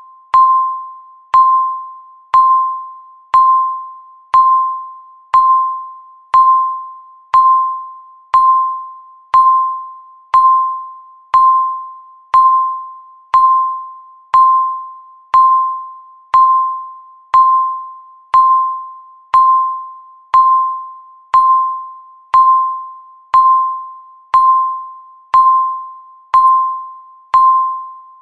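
Countdown timer beeping once a second: a short mid-pitched electronic tone that starts sharply and quickly dies away, repeated evenly.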